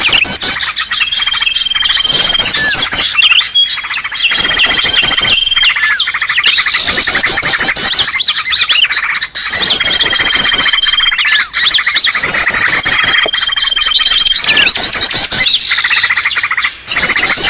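Cucak ijo (green leafbird) calling loudly and agitatedly, in the 'ribut' style used as a trapping lure: rapid, high, looping chatters alternating with a held whistled note of about a second, the pattern repeating every few seconds.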